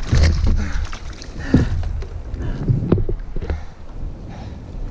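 Wind buffeting the microphone, with irregular knocks and handling noises as a freshly netted lingcod is lifted from the landing net onto a plastic fishing kayak.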